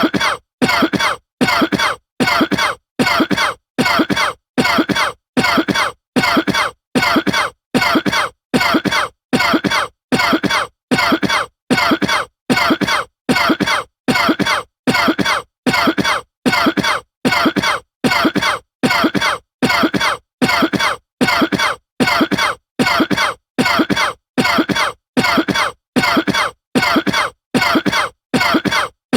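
A man coughing over and over in a strict, even rhythm, about three coughs every two seconds, each cough short and followed by dead silence.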